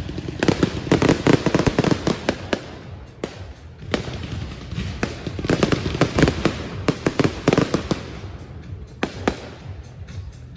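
Fireworks going off in two long volleys of rapid bangs and crackles, the first starting about half a second in and the second about five seconds in, with single cracks in between.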